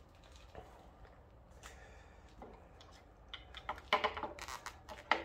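Hard plastic clicks and knocks as the motorcycle's black plastic instrument housing is handled and fitted into place by hand. Faint handling noise for the first few seconds, then a quick cluster of sharper clicks from about three seconds in.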